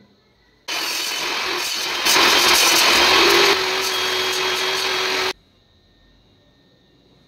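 Bench table saw running and cutting through a small block of wood on a crosscut sled to form a tenon. It is loudest for about a second and a half in the middle while the blade is in the wood, and the sound starts and stops abruptly.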